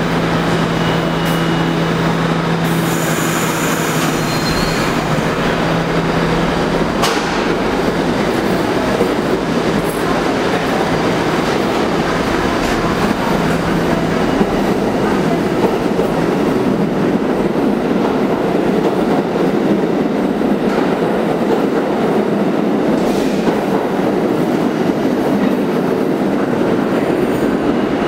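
Westinghouse R68 subway train pulling out of the station and running away along the track, a steady loud rumble of wheels on rail. There is a brief high hiss about three seconds in.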